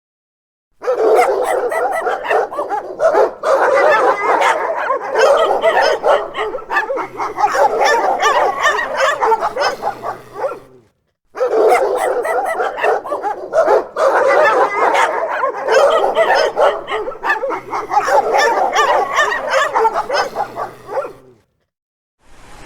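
Dog barking and yipping in a dense, continuous run of short calls, heard as one stretch of about ten seconds that then plays again after a short break.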